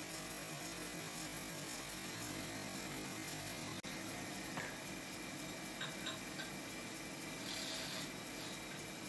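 Metal-spinning lathe running steadily, turning a silver blank on its mandrel while a hand-held spinning bar presses the metal into shape: a low, even whirr, with a few faint clicks about halfway through.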